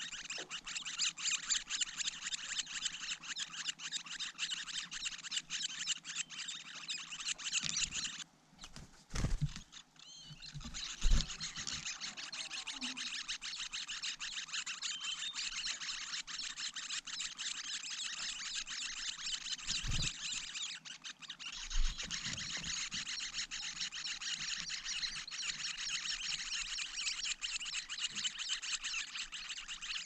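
Leiothrix nestlings begging in a continuous high, rasping chorus, a sign that an adult is at the nest with food. The chorus breaks off for about two seconds around eight seconds in and resumes. A few low thumps come through as well, the loudest about eleven seconds in.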